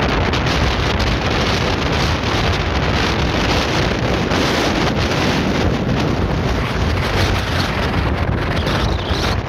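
Strong wind buffeting the microphone: a loud, steady rushing noise, heaviest in the low end.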